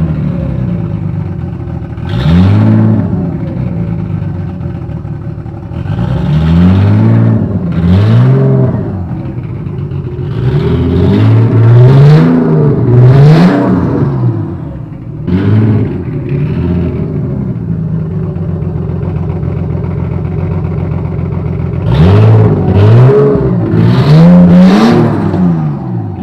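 Nissan RB25 straight-six engine blipped over and over, in single revs and quick runs of two or three, each time dropping back to an idle that the owner calls rough.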